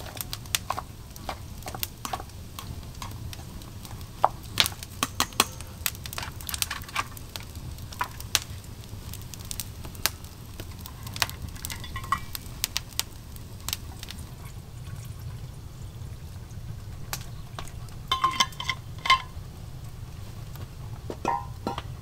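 Irregular sharp clicks and crackles, thickest in the first half, with a few short ringing clinks about halfway, again later on, and near the end, over a steady low hum.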